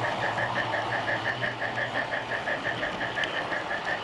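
Garden-railway train running along the track, heard from on board: an even mechanical beat of six or seven pulses a second over a steady low hum.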